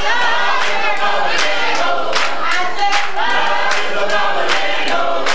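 Gospel singing, a soloist with a vocal group, over steady handclaps about twice a second.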